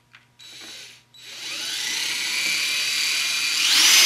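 Cordless drill starting about a second in and running with a steady whine as its long, roughly 4 mm bit bores down through the foam layout base; near the end the motor speed rises and then falls.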